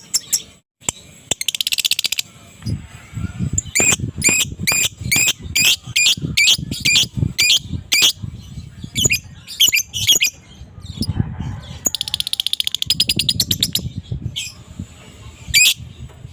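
Adult fighter lovebird calling: a long run of sharp, shrill chirps about two a second, broken near the start and again after about 12 s by rapid chattering trills (the 'ngekek' cackle).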